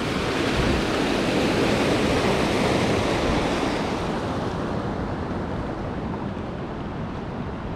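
Creek water rushing over rocks, a steady rush that eases off a little through the second half.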